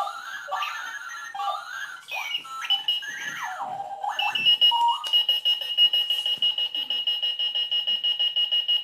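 Runaway-style novelty alarm clock going off: first a string of warbling, gliding electronic chirps, then from about four seconds in a rapid, high-pitched beeping that keeps going.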